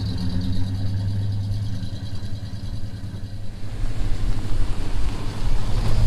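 Truck engine running: a steady low hum for about the first two seconds, then a rougher, uneven rumble.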